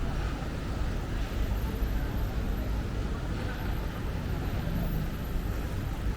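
Steady street traffic noise: a continuous low rumble of vehicles.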